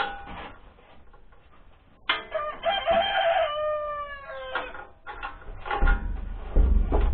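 A rooster crowing once, a single call of about two and a half seconds whose pitch falls away at the end. Near the end come several low thumps and knocks.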